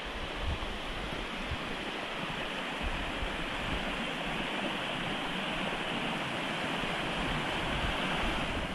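Shallow rocky creek running over stones: a steady rushing hiss that swells slightly and drops away near the end.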